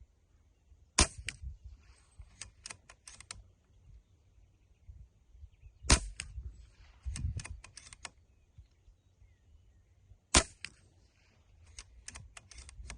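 Brocock Ghost HP .25-calibre PCP air rifle firing three shots about four and a half seconds apart. Each is a sharp crack followed by a quick run of four or five lighter clicks as the action is cycled for the next pellet.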